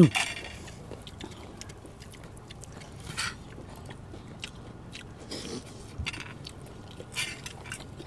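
People eating: scattered short crunching and scraping sounds of chewing and of hands and a spoon working at food on plates, a second or more apart.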